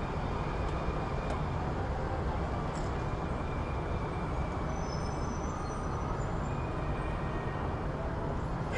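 City street ambience: a steady, dense rumble of road traffic, with faint high squeals here and there.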